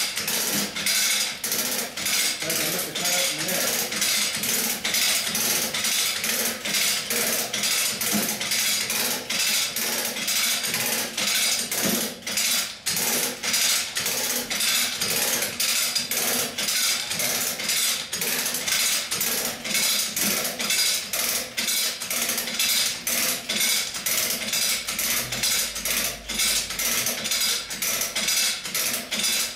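A winch pulling a Mazda Miata onto a lift: a steady run of fast metallic clicks and rattles over a constant low hum.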